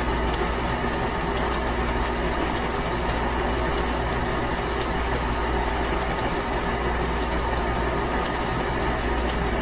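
Electric stand mixer running steadily with its paddle beater, mixing rye bread dough: an even motor hum.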